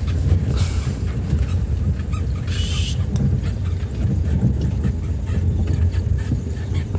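Vehicle's engine and road rumble heard from inside the cab as it drives slowly over a rough road, steady and low. There is a brief high hiss twice, the second with a short squeak.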